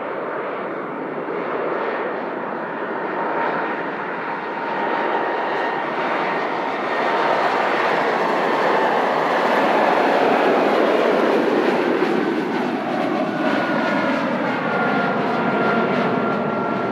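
Airliner passing close by, its engine noise building to a peak about ten seconds in, with high whining tones that drop in pitch as it goes past.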